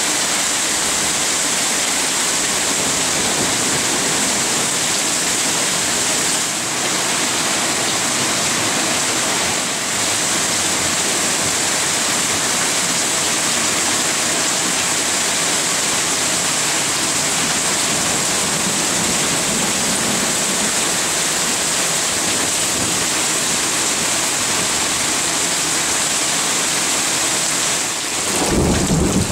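Heavy rainstorm downpour: a steady rush of rain pouring down, with water sheeting off the roof edge. A low rumble of thunder comes in near the end.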